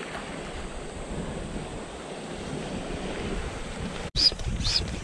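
Steady wash of wind and lapping waves at the water's edge. After a sudden cut near the end, a rhythmic squeak with a low thump starts, about twice a second.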